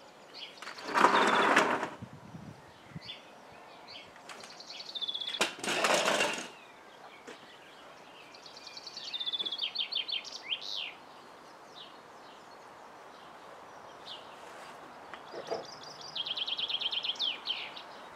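A songbird singing: a short, high trilled phrase ending in quick falling notes, repeated three times about every six seconds. Two louder noises, each about a second long, come about a second and about five and a half seconds in.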